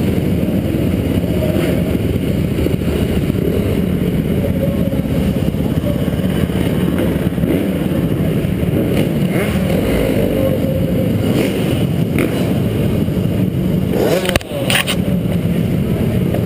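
Dirt bike engine running steadily at low speed, heard from the rider's helmet camera. A brief drop and a short clatter come near the end.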